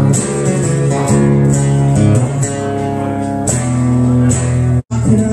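Live blues band playing an instrumental passage, guitar to the fore over bass. The sound cuts out for an instant near the end.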